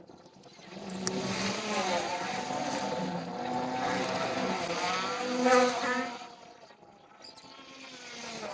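A motor running: it starts about a second in, rises in pitch and level to a peak around five and a half seconds, then dies away.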